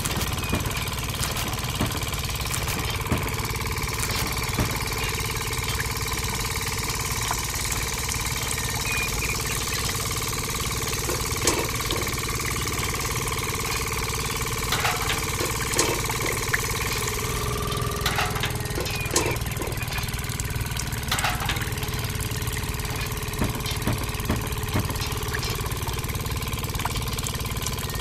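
A small motor running steadily, driving the belt of a miniature dispensing machine, its hum stepping slightly lower in pitch about two-thirds of the way through. Occasional light clicks and knocks sound over it.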